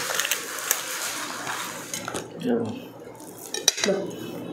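Metal tongs and utensils scraping and clicking against a plate as roast pork belly is pulled apart, with many small clicks at first and one sharp clink later, among short bits of voice.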